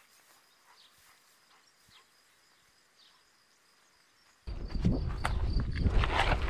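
Faint outdoor background with a thin, steady high insect-like tone and a few faint ticks. About four and a half seconds in it cuts abruptly to a loud low rumble of wind on a head-mounted action camera's microphone, with rustling and footsteps.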